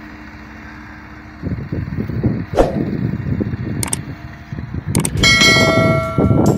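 Subscribe-button animation sound effect: a few sharp mouse clicks, then a bright notification bell chime ringing out near the end. Under it runs a low, uneven rumble.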